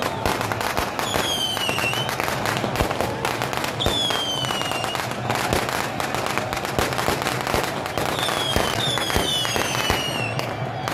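Aerial fireworks going off in quick succession: dense crackling and popping, with several whistles that slide down in pitch for about a second each, two near the start and two more near the end.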